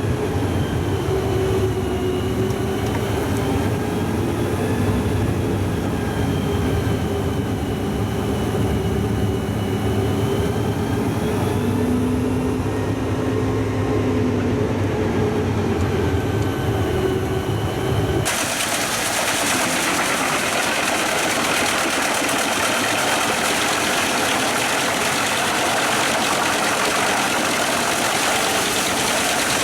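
Truck-mounted drum wood chipper driven by a Scania truck engine, running steadily with a low, wavering drone. About two-thirds of the way through the sound changes abruptly to a steady hiss-like noise with less low end.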